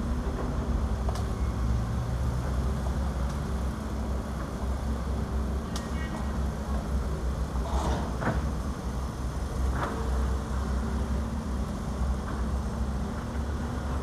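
Heavy diesel engines of dump trucks and an excavator running with a steady low rumble, with a few short clanks and scrapes about halfway through.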